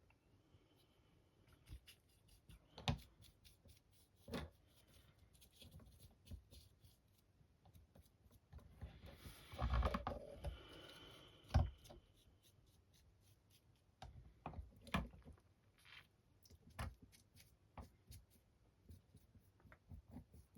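Small handling noises at a painting bench: scattered light clicks and taps, with a longer scuffing noise about ten seconds in.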